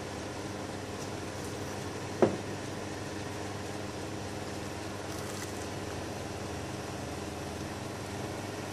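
Steady, even mechanical hum like a running fan or room appliance, with one brief sharp sound about two seconds in.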